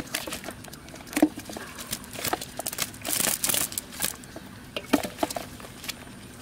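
Live fish flapping and slapping in a wet cast net as it is pulled apart by hand, with the net mesh and leaves rustling. There are irregular sharp slaps, and a longer rustling flurry about three seconds in.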